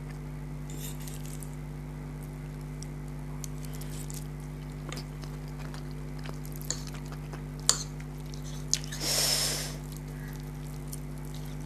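Close-miked eating of instant noodles: soft wet chewing and mouth clicks, a few sharp clicks, and a short slurp of noodles just after nine seconds, over a steady low hum.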